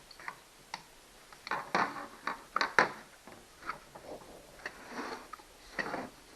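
Hand tools and parts of a Stihl 029 chainsaw being handled: scattered, irregular clicks and light knocks.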